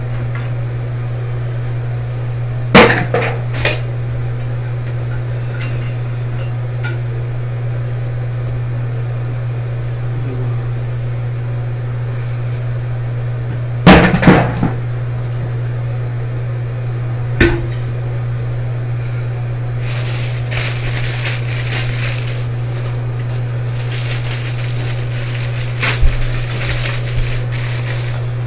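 Sharp knocks and clinks of hands and parts against a porcelain toilet tank while the old flush valve is worked free: a few near three seconds in, a loud cluster about halfway, one more a few seconds later. Rattling and scraping of the plastic flush valve follow near the end as it comes out. A steady low hum runs underneath throughout.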